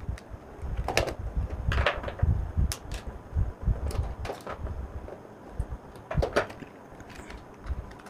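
Irregular clicks, scrapes and low knocks from hand work on an electrical switchboard: a screwdriver at the terminal screws and the board and its wires being handled and shifted.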